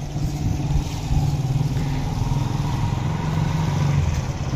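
Small motorcycle engine of a motorcycle-and-sidecar tricycle running steadily with a quick pulsing beat, growing louder as it approaches.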